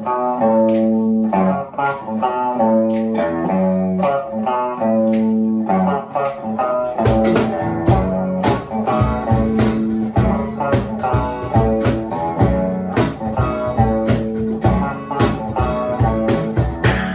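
Live band music: a guitar plays a riff alone, then drums and bass come in about seven seconds in.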